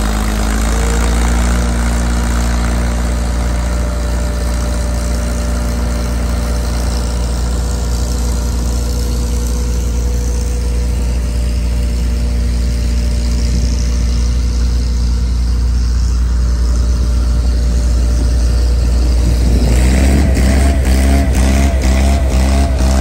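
Large tractor engine running steadily at a constant speed. About twenty seconds in, a second engine's pulsing, wavering note comes in close by.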